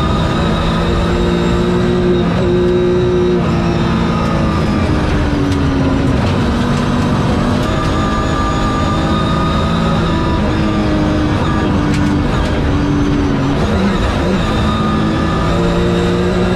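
BMW rally car's engine at full load, heard from inside the cabin, its pitch climbing and dropping several times through gear changes, over steady tyre and gravel noise.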